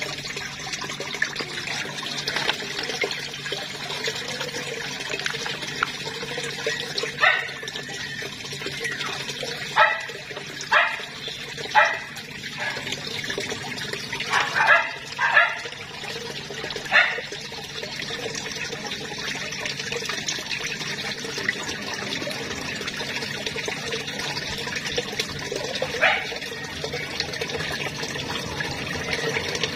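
Steady rush of running water at a koi pond. A dog barks a series of short barks partway through, then once more near the end.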